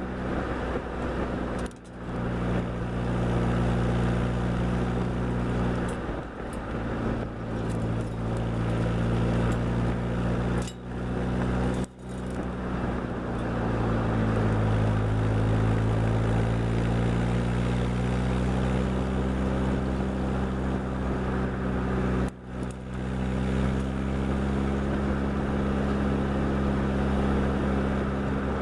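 Open-top sports car's engine running steadily on the move, its note shifting in pitch a few times and briefly dropping away about four times, as at gear changes.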